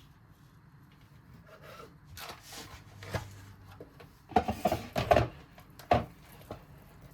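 Kitchen work sounds: rubbing and scraping, then a few sharp knocks about four to six seconds in.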